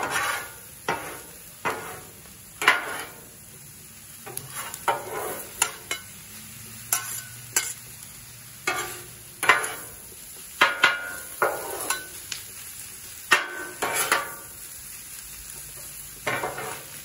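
Steel spatula and scraper raking and scraping ground beef, onions and green peppers together on a Blackstone griddle's hot steel cooktop. Irregular scrapes and clanks come about once a second, some with a short metallic ring, over the steady sizzle of the food frying.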